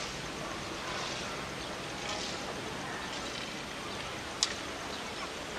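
Steady outdoor background hiss with one sharp click about four and a half seconds in.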